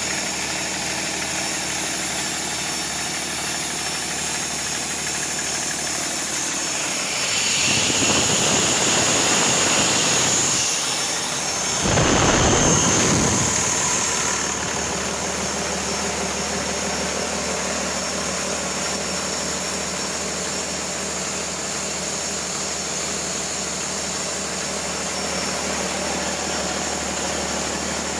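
2009 Cummins ISB 6.7-litre inline-six turbodiesel running steadily on a test run. About seven seconds in, for several seconds, it grows louder with a high turbocharger whine and a rush of intake air, then settles back to the steady running.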